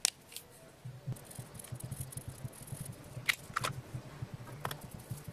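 Handling noise from fingers on a small magnet and a wired fan-motor coil: a few light clicks and taps, the clearest a little past the middle, over a low fluttering hum that starts about a second in.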